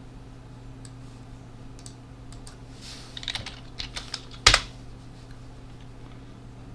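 A few scattered keystrokes on a computer keyboard, the loudest about two-thirds of the way through, over a steady low hum.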